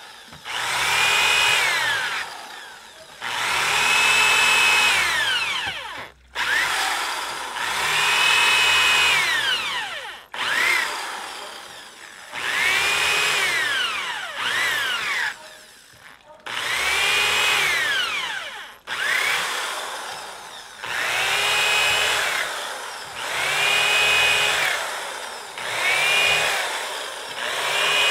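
Handheld electric drill boring holes into wooden deck boards: again and again it spins up with a rising whine, runs for one to two seconds through the wood and winds down, about a dozen times in a row.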